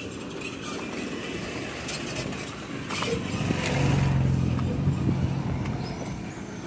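A motor vehicle's engine running close by, growing louder about three and a half seconds in and then easing off, with a few sharp clicks shortly before.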